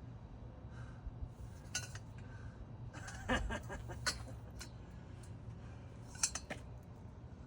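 A few scattered light metal clinks and knocks from a breaker bar that has just snapped on a seized lug nut, its pieces and socket shifting, over a steady low hum.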